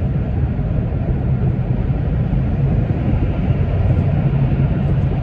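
Steady low road and tyre rumble inside the cabin of a car cruising at highway speed.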